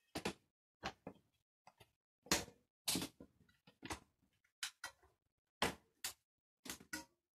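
A bicycle wheel being set into the frame's dropouts: a string of irregular sharp knocks and clicks as the hub axle is seated, leaving the wheel in place but still loose.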